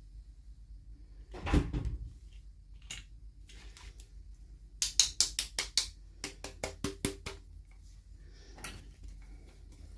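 Hands handling toy packaging: a rustle and knock about a second and a half in, then two quick runs of sharp clicks, about eight a second, in the middle, and a softer rustle near the end.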